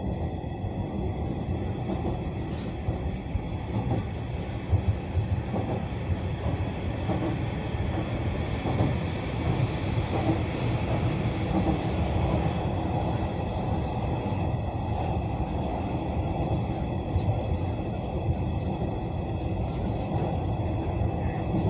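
Hanshin 9300 series electric train running along the line: a steady rumble of wheels on rail with several faint high steady tones above it, heard from inside the front car.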